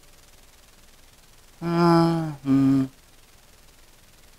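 A man's voice sounding two short held notes, about a second and a half in, the second a little lower than the first, over a faint steady hiss.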